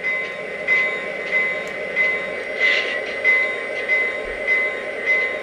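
O-gauge model SD80MAC diesel locomotive running slowly on three-rail track: a steady mechanical hum with a regular pulse about every two-thirds of a second.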